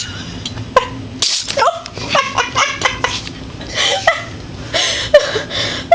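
A cat sneezing over and over, a run of short sharp sneezes several times within a few seconds.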